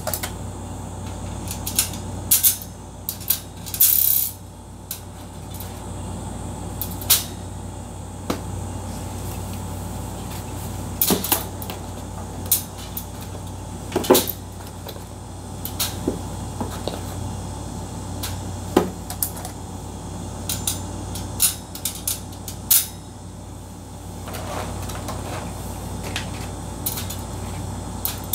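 Irregular sharp clicks and taps of hatching eggs and plastic egg trays being handled while the eggs are loaded into an incubator, over a steady low hum.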